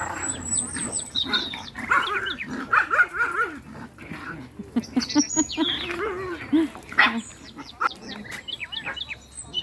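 Small dogs barking and yipping in a rapid string of short, high yelps.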